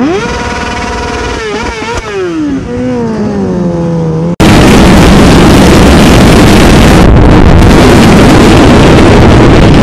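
Motorcycle engine revving up, holding its revs, then winding down. A little over four seconds in, the sound cuts abruptly to a loud, steady roar of riding wind on a helmet camera's microphone.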